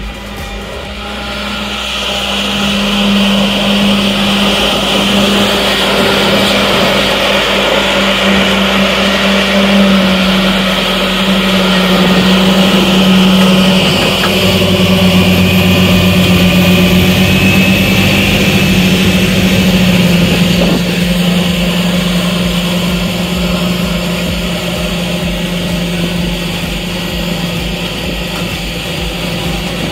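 John Deere 8430 tractor's 9.0-litre six-cylinder turbo-diesel running at full throttle under heavy load, pulling a 915 V-Ripper subsoiler through the ground. A steady engine drone that grows louder over the first few seconds as the tractor comes close and eases off in the last third.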